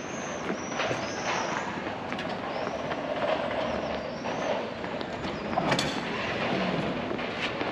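City tram running on street rails, its wheels squealing high in short arcs near the start and again about four seconds in, with several sharp clacks over the rails.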